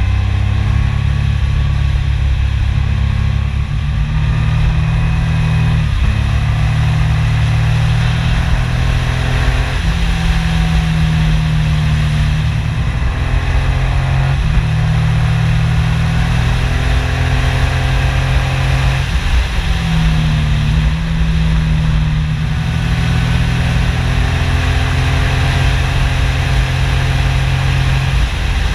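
Yamaha MT-09 Tracer's three-cylinder engine running under way. Its note climbs and then steps back down several times as the bike pulls through bends, over a steady rush of wind noise.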